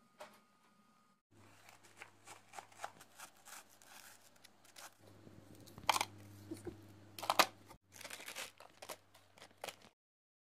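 Crackling, crunching kitchen handling sounds: a string of short clicks in several cut sections, the two loudest about six and seven and a half seconds in, over a low steady hum.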